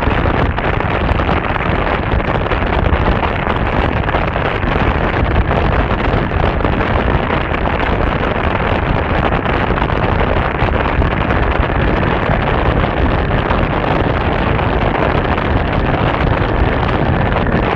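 Steady, loud wind noise buffeting the microphone of a camera on a moving motor scooter.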